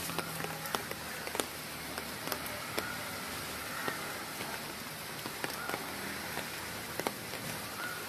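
Steady monsoon rain falling on a wet street and puddles, with scattered sharper drops and drips ticking through it.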